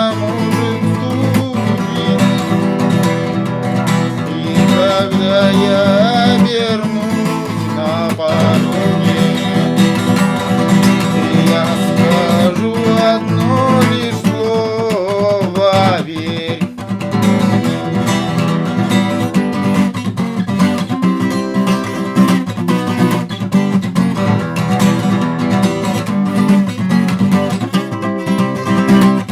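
Acoustic guitar strummed steadily, with a melody line sliding up and down in pitch over the chords: an instrumental passage closing out a song.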